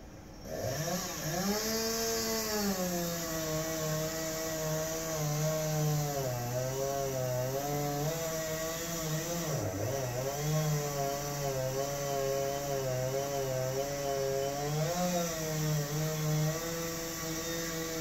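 Two-stroke chainsaw brought up to high revs about half a second in, then running under cutting load, its pitch sagging and recovering as it cuts, with a brief sharp drop in revs about ten seconds in.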